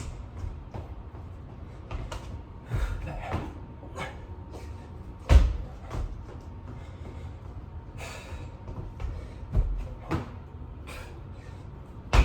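Scattered thumps and knocks of hands and feet landing on the floor during burpees, the loudest about five seconds in.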